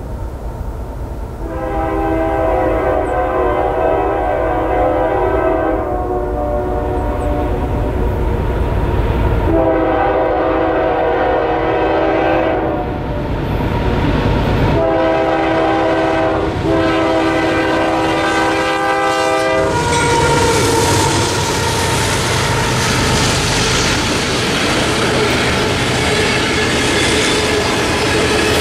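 Locomotive horn on the leading Union Pacific AC44CWCTE sounding the grade-crossing signal: two long blasts, a short one and a long one. About twenty seconds in, the loaded phosphate train reaches the crossing and rolls past, its covered hoppers' wheels clicking over the rail joints.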